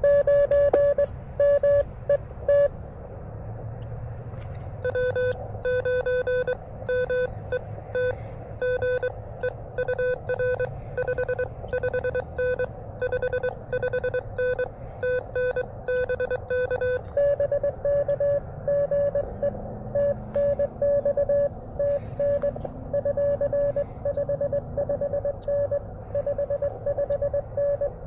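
Morse code tones from a ham radio transceiver: two CW signals at slightly different pitches take turns, a higher tone keyed briefly, a lower, harsher tone sending for about twelve seconds from about five seconds in, then the higher tone again, over steady receiver hiss.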